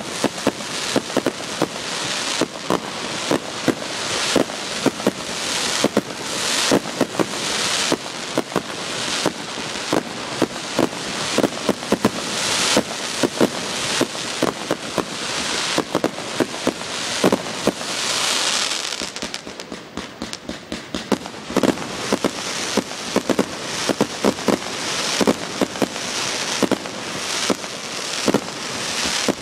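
Aerial fireworks bursting in quick succession: a dense run of sharp bangs over continuous crackling, easing for a couple of seconds about two-thirds of the way through, then building again.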